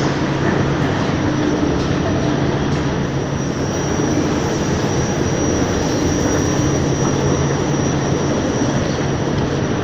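Metro escalator running: a steady mechanical rumble and hum, with a thin high whine joining about three and a half seconds in and fading near the end.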